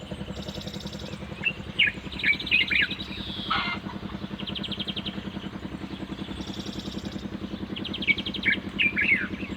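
Small birds chirping in short, quick falling notes and trills, in two bouts, over a steady low motor hum with a fast even pulse.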